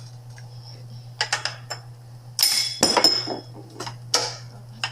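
Typewriter mechanism clacking: a few sharp metallic strikes, loudest in a cluster past the middle, over a steady low hum.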